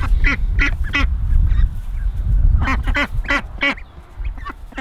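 A small flock of domestic ducks quacking: a quick run of short quacks in the first second, then another run of four or five about three seconds in.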